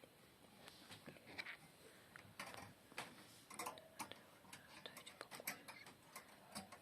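Faint, irregular small clicks and rustles of a hamster scrabbling about in its cage.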